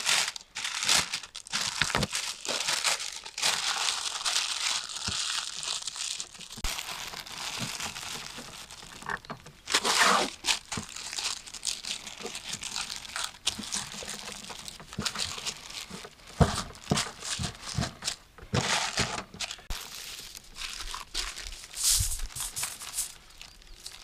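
Wrapping sheets crinkling, crumpling and tearing in irregular handfuls as seasoned beef shanks are wrapped into a tight parcel, with a louder rip about ten seconds in.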